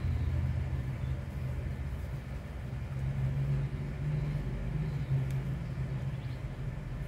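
Low, steady background rumble, swelling slightly midway.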